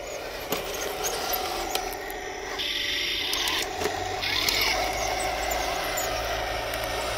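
Torro 1/16-scale RC Sturmtiger model tank driving over dirt and stones: its electric drive motors and gearboxes whine in spells as it moves, over a steady hum, with a few sharp clicks from the plastic tracks on stones.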